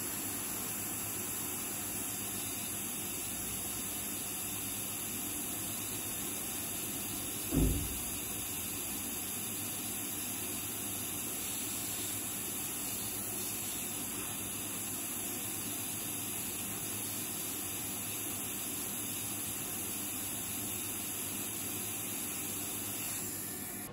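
Hot air rework gun blowing a steady hiss onto the circuit board, heating a faulty 12 V capacitor so it can be desoldered. There is one brief low thump about seven or eight seconds in, and the hiss drops away near the end.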